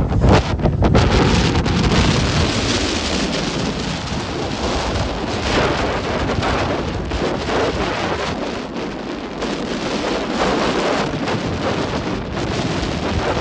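Rough sea: waves surging and breaking in a continuous noisy wash that swells and eases every few seconds. Wind buffets the microphone with a low rumble during the first couple of seconds.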